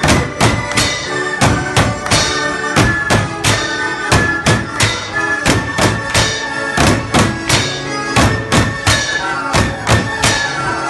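Valais drum-and-fife band playing a march: high fifes carry the melody over regular drum strokes, about three to four beats a second.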